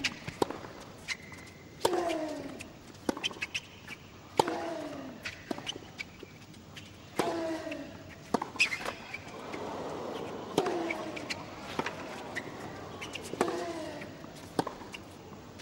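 Tennis rally on a hard court: sharp pops of racket strings striking the ball and the ball bouncing, with a player's short grunt, falling in pitch, on every other stroke, about every three seconds.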